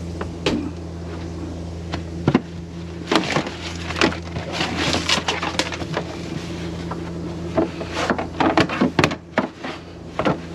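A hand rummaging in a wooden sink cabinet: scattered clicks, light knocks and rustling as a paper towel is wiped around the water filter housing and fittings to check for leaks, over a steady low hum.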